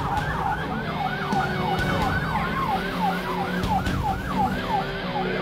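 Police car siren in a fast yelp: rapid falling sweeps, about four a second, with engine and road noise beneath during a pursuit.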